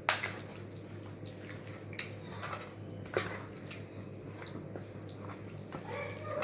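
A hand squelching and slapping raw chicken pieces through a thick spice marinade in a bowl, with a few sharper wet slaps or clicks, the loudest right at the start.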